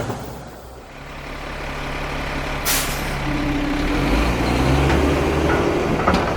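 A heavy vehicle's engine running, steady and low and growing louder, with a short burst of hiss about three seconds in, like an air brake releasing.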